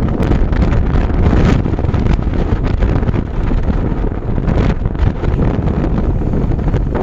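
Heavy wind buffeting the microphone while riding in a moving vehicle, over a steady low rumble of the vehicle on the road.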